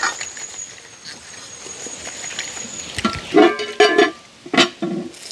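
A short snatch of music: a quiet opening with a thin high steady tone, then a few short, clipped pitched notes about three to five seconds in.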